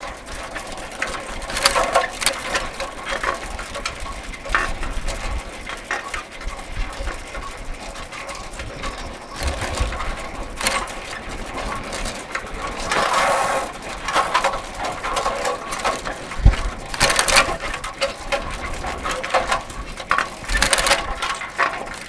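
Old bicycle being pedalled: a steady mechanical clicking and rattling from the chain and drivetrain, with louder bursts of rattling several times and one low thump about sixteen seconds in.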